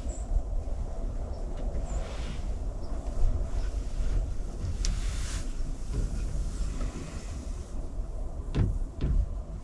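Low, uneven rumble of wind on the microphone, with a few faint knocks near the end.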